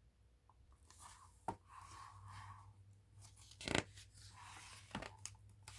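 Paper pages of a picture book being handled and turned: soft rustling with a few sharp snaps, the loudest about midway.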